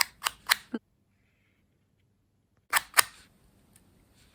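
A series of sharp clicking taps on the work surface, about three a second, as silver dots are dabbed onto the craft card. There is a stretch of dead silence after the first three taps, then two more loud taps and a few faint ones.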